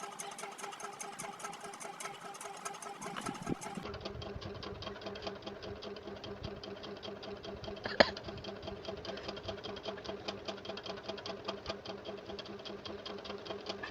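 A small motor running steadily, a low hum with a fast, even ticking, and one short sharp sound about eight seconds in.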